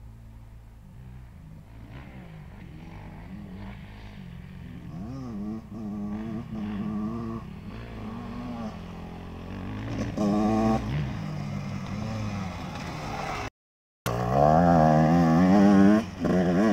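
Husqvarna WR 125 two-stroke dirt bike engine revving up and down through gear changes as it rides the track, growing louder as it approaches. About three-quarters of the way in it cuts out briefly, then comes back much louder and close by, revving hard.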